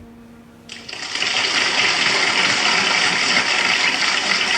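Applause sound effect played back from a sound library: a crowd clapping, starting suddenly about a second in and then going on steadily.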